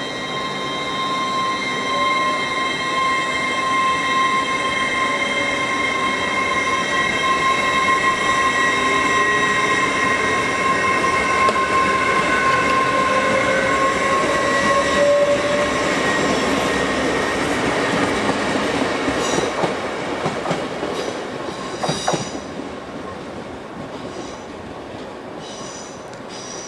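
LNER Azuma (Hitachi intercity unit) moving through the station: a steady high electrical whine and a tone that rises in pitch, over wheel rumble that swells and then fades. A run of sharp clicks comes near the end.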